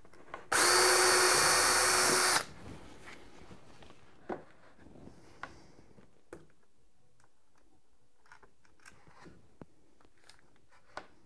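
DeWalt cordless drill driving a screw into a metal drawer slide, running for about two seconds and then stopping. Small clicks and taps of handling follow.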